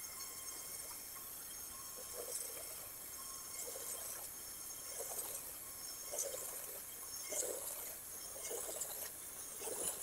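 Water from a pressure-washer J-Rod wand on a narrow-stream tip spraying against vinyl siding: a faint, steady hiss with uneven splashing.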